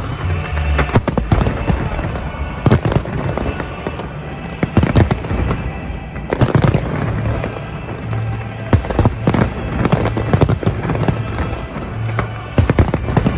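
Fireworks display going off: clusters of sharp bangs following one another throughout, over music with a steady bass line.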